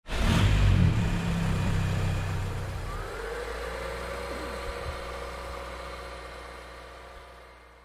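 A car engine starting abruptly with a low rumble, running, then fading away steadily over several seconds as it drives off.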